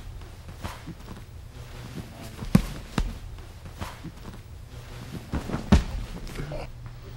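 Bodies and feet thudding and shuffling on a training mat during jiu-jitsu self-defence drills, with a few sharp thuds, the loudest about two and a half seconds in, at three seconds and near six seconds. A steady low hum runs underneath.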